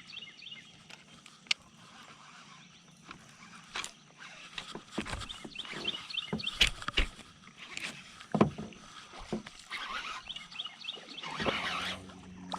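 Irregular water splashing with scattered sharp knocks and clicks, heaviest in the second half: a topwater lure being worked and a largemouth bass thrashing at the surface on the line.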